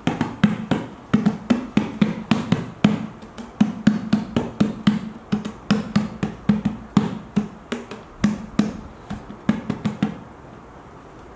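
Hands slapping and drumming on a large metal milk-formula tin: quick, uneven strikes about four a second, each with a short hollow ring. They stop about ten seconds in.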